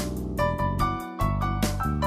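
Background music: a melody of pitched notes over a sustained bass line, with a steady ticking beat.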